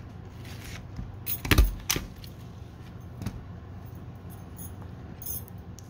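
A red desk stapler handled on a wooden table: two sharp knocks about half a second apart, the first with a heavy thud, then a lighter click or two.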